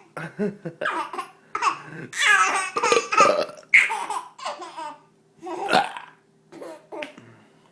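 A baby laughing in repeated fits, loudest a couple of seconds in, with a last burst about six seconds in before trailing off.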